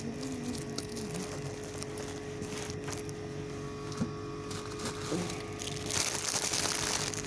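Indoor shop ambience: a steady electrical hum with scattered small clicks and knocks, and a rustle of handling lasting about a second, about six seconds in.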